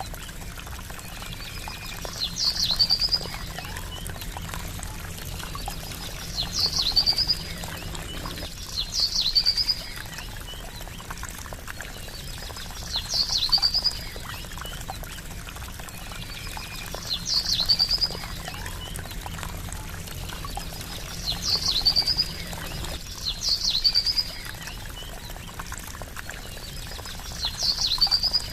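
Steady trickling water with a short, high bird call standing out every two to four seconds, about eight times. The calls are the loudest sound.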